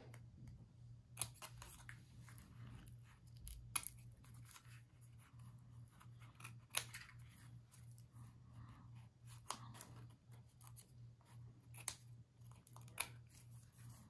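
Small scissors snipping paper, about half a dozen separate sharp snips a few seconds apart, as excess paper is trimmed from the edge of a die-cut chipboard ring. A faint low steady hum runs underneath.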